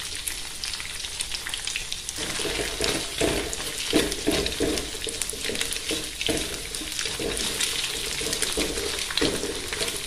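Scrambled eggs sizzling in a metal wok while a spatula scrapes and stirs them, with short strokes at about two to three a second from about two seconds in.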